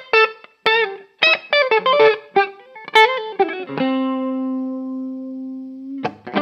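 Electric guitar played through a Nobels CHO mini chorus pedal: a run of short picked notes that waver slightly in pitch, then a single note left to ring for about two seconds, with quick notes starting again near the end.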